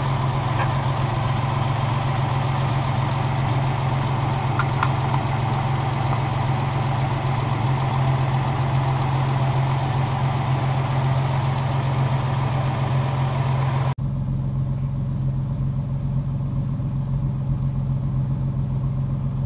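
Austin A90 Six's BMC C-Series straight-six engine idling steadily. About fourteen seconds in, the sound changes abruptly to a duller, slightly quieter idle.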